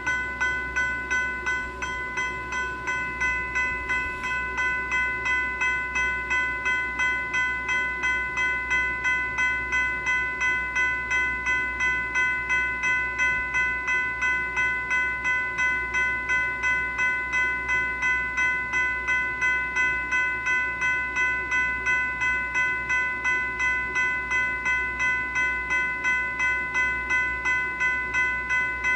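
General Signals Type 3 electronic bell ringing continuously: an evenly repeating electronic strike a few times a second over a steady ringing tone.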